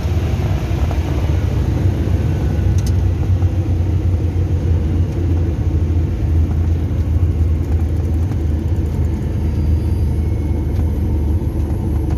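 Small propeller plane's engine running with a steady low drone.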